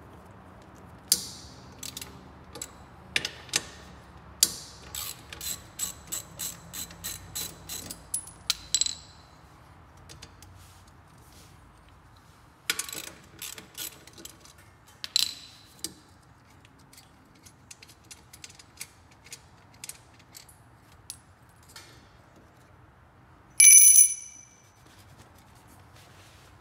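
Socket ratchet wrench clicking in short runs, one fast run of about a dozen clicks, as the motorcycle's exhaust mounting bolts are loosened. A single loud metallic clank with a ringing tail near the end.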